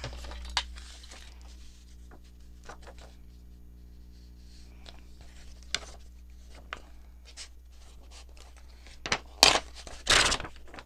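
Book pages being handled and separated by hand: faint rustles and light taps, then a few loud, short paper rustles near the end.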